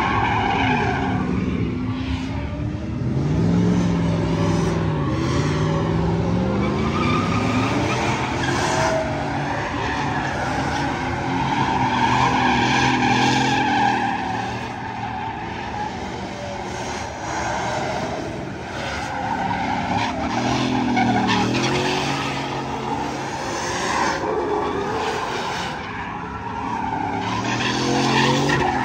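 Pickup truck doing donuts: tyres screeching and skidding on the pavement while the engine revs up and down over and over.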